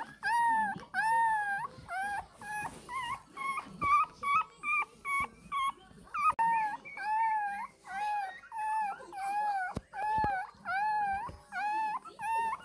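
A 20-day-old Shih Tzu puppy crying for milk in a string of high, wavering whines, one after another. The cries are shorter, higher and quicker in the middle.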